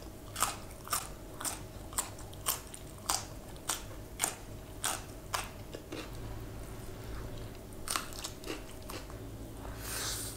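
Close-miked crunching as a bite of a raw, crisp green vegetable is chewed with the mouth: about two crisp crunches a second for five seconds, then a pause and a few scattered softer chews near the end.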